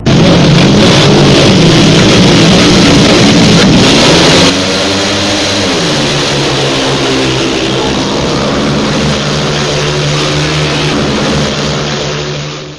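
Speedway motorcycle engines revving loudly, their pitch swinging up and down. About four and a half seconds in, the sound drops to a quieter, steadier engine note, which fades out at the very end.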